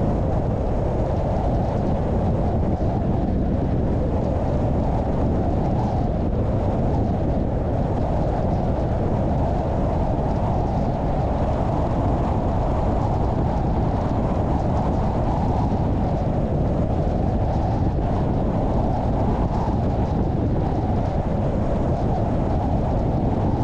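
A car driving at a steady pace: continuous engine and tyre road noise with no change in speed.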